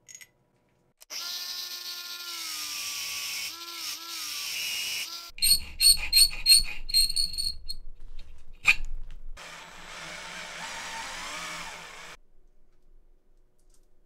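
Small power tool running with a steady whine that sags in pitch a few times, then a quick run of sharp, ringing metallic taps and one loud click, then a second stretch of whirring tool noise with a wavering pitch.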